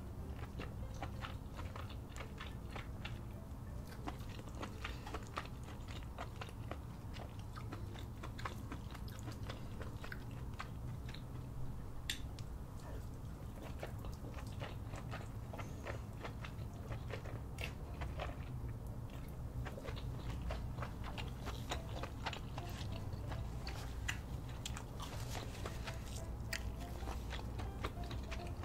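Close-miked eating sounds of seafood boil in cheese sauce: continuous wet chewing, biting and mouth smacks, with many small clicks and crunches, over a steady low hum.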